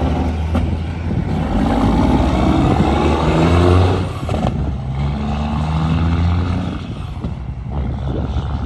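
Bobtail semi tractor's big diesel engine pulling away hard. Its pitch climbs, then drops at a gear shift about four and a half seconds in, climbs again and drops at another shift near the end.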